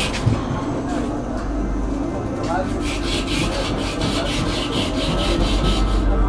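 Rhythmic rasping strokes, like a hand tool worked back and forth, about five a second from about three seconds in, over a steady low hum.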